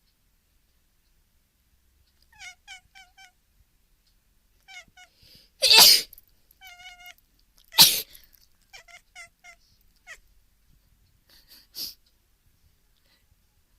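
A person sneezes loudly twice, about two seconds apart, and a domestic cat answers with quick runs of short, high chirping meows before, between and after the sneezes; a softer sneeze-like burst comes near the end.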